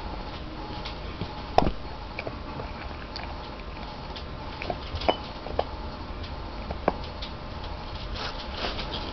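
Retriever-chow mix dog chewing at her own toenails: scattered small clicks and nibbling of teeth on claws, with one sharper click about a second and a half in.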